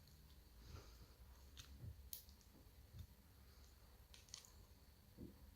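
Near silence with a handful of faint, scattered small clicks: hand tools working inside a euro lock cylinder to get the pins out.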